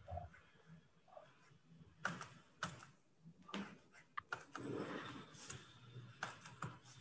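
Scattered sharp clicks and taps, about half a dozen, from hands working at a digital drawing setup, with a short rustling stretch a little past the middle.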